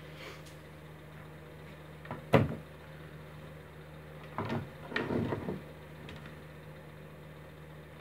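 A sharp knock about two seconds in, then a few short clatters as a handheld digital multimeter and its test leads are put down on the wooden board, over a steady low hum.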